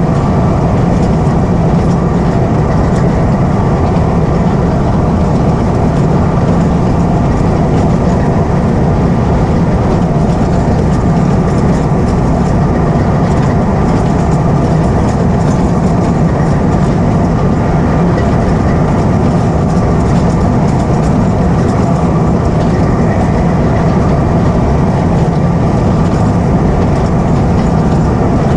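Cat D8K crawler dozer's diesel engine running loud and steady while pushing snow, heard from the operator's seat, with the steel tracks clattering underneath.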